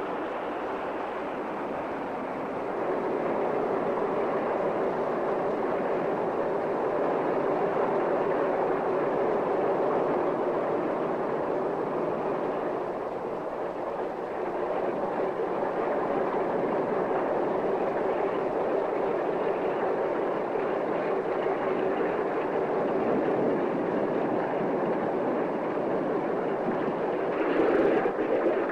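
Steady drone of the Supermarine Stranraer flying boat's twin Wright Cyclone radial engines, muffled and thin on an old film soundtrack. It grows louder about three seconds in, with a brief louder rush near the end.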